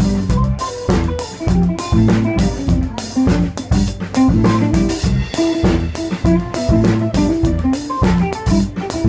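Small live band playing a song: guitar, bass guitar and a drum kit keeping a steady beat, with the drums and cymbals up close.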